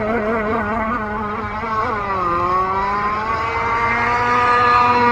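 Gas engine of an RC racing boat running on the water. Its pitch wavers, drops sharply about two seconds in, then climbs steadily back up as it comes back on throttle.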